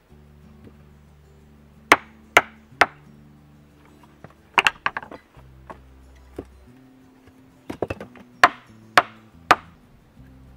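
Sharp knocks of stone against stone as a flat stone slab is set and shifted onto a standing stone, with three knocks in quick succession twice and a cluster between. Soft background music plays underneath.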